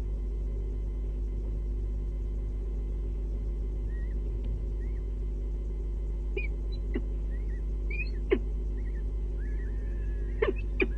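Faint short chirping calls from birds, starting about four seconds in, over a steady low hum, with a few sharp taps, the loudest about eight seconds in and two close together near the end.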